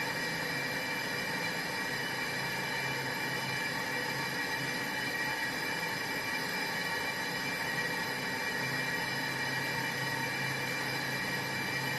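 Brake drum/disc lathe running steadily, a constant metallic whine with a low hum beneath.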